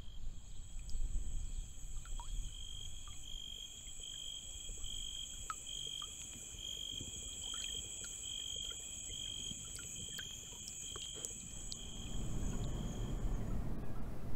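Insects chirping steadily in several high tones, one of them pulsing a little more than once a second; they fade out near the end as a low rumble rises.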